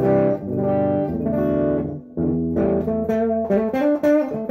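Electric guitar (a Gibson Les Paul with a '61 Zebra humbucker, wired modern style) played through an amp with its tone knob rolled all the way off, giving a dark, muddy sound. Ringing chords for about two seconds, a brief break, then a run of picked notes.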